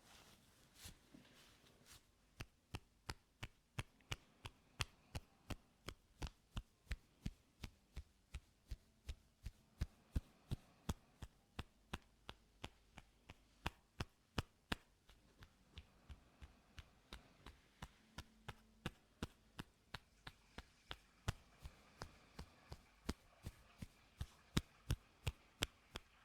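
Sharp taps close to the microphone in a steady rhythm of about two or three a second, starting about two seconds in.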